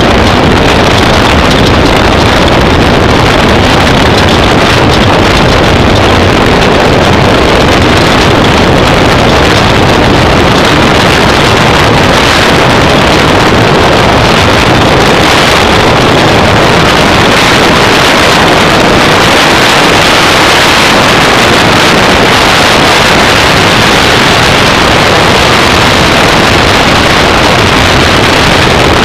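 Off-road race vehicle running hard at speed, a loud, steady engine roar mixed with wind noise on the microphone.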